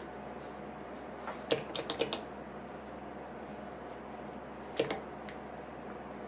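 Steady low hum and hiss with light, sharp clicks and taps: a quick cluster of about five a second and a half to two seconds in, and two more near the five-second mark.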